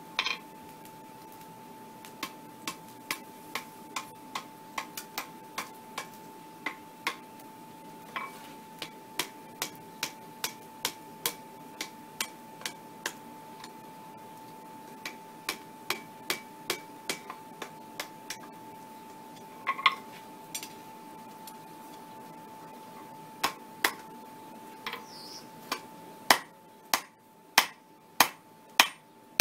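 Hand hammer striking red-hot 10 mm round mild steel on an anvil while forging a chain link: a long series of sharp blows, about two a second, with two short pauses, the last several blows near the end louder.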